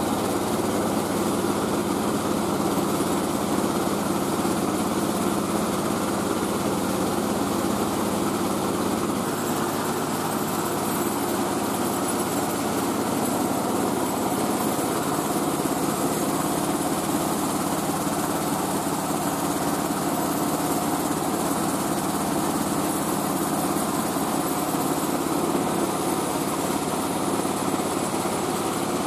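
Mobile rice-milling machine running steadily, its engine and mill giving a loud continuous drone while grain is being milled. The low hum shifts slightly about ten seconds in.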